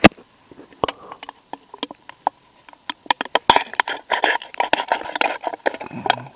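A steel knife cutting into the top of an aluminium beer can: scattered sharp taps and clicks at first, then dense scraping and crinkling of the thin metal from about three and a half seconds in.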